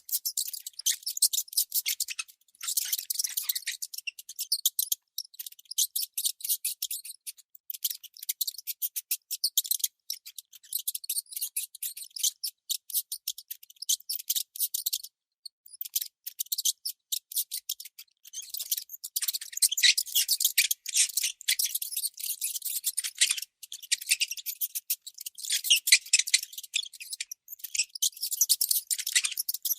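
Baby mouse squeaking in rapid, high-pitched chirps, strung into fast runs with short pauses between them.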